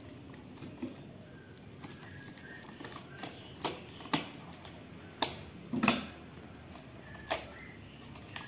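A tape-wrapped parcel being cut open with a small knife: several sharp crackles and scrapes at irregular moments, the loudest a little past the middle.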